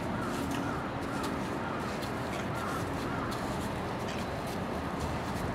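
Birds calling: short chirps repeating every half second or so, over a steady background of outdoor noise.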